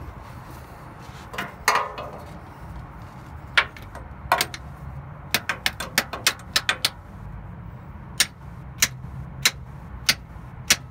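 A series of sharp metallic taps, scattered at first, then falling into an even run about two-thirds of a second apart in the last few seconds, over a low steady rumble. Small hammer taps on the stuck starter of a 2000 Ford F-250, meant to jar it free so it can engage the flywheel.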